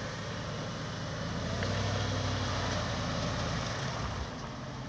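Jeep Commander's engine running at low throttle as the SUV crawls down a steep dirt bank; it grows a little louder about a second and a half in and eases off near the end.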